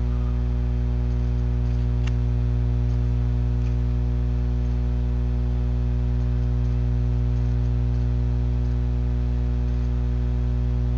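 Steady electrical mains hum picked up in the webcam's audio, a constant low buzz with evenly spaced overtones, and a faint click about two seconds in.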